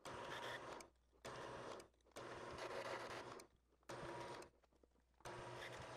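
Sped-up (10x) sound of a Grizzly wood lathe turning down a nylon washer, the tool cutting the nylon in five short bursts of mechanical chatter separated by brief gaps, over a faint low hum.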